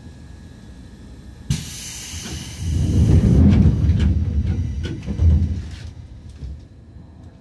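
Seibu 2000 series electric train heard from inside the car while running. About one and a half seconds in, a sudden thump and rush of hissing noise begins and swells into a loud, heavy rumble with sharp clicks of wheels over rail joints. Near the end it falls back to the quieter steady running noise.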